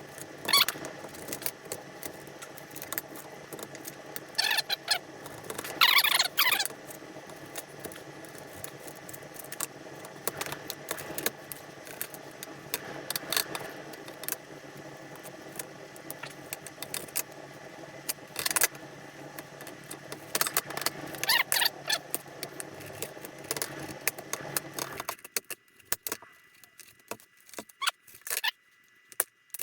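KitchenAid stand mixer running its meat grinder attachment with a steady motor hum, with squeaks and clicks as beef cubes are pushed through. The motor switches off a few seconds before the end, leaving only scattered squeaks and clicks.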